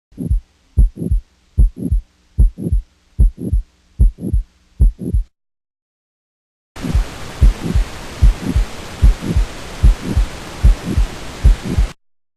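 Heart sounds with a late systolic murmur: a paired lub-dub repeating about 75 times a minute. The beats stop about five seconds in, start again a second and a half later over a loud steady hiss, and stop about a second before the end.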